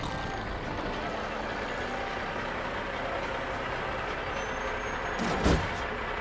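Semi-truck engine running as the big rig pulls in and stops, with a short, loud release of the air brakes about five and a half seconds in.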